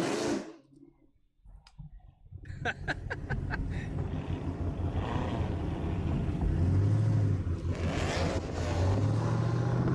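Car engine and road noise heard from inside a moving car. A short run of sharp clicks comes about three seconds in, after a brief lull.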